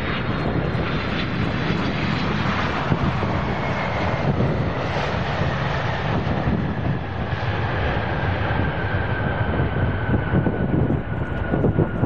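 ANA Boeing 767-300 touching down and rolling out, with the steady rumble of its GE turbofan engines. A whine slowly falls in pitch from about four seconds in.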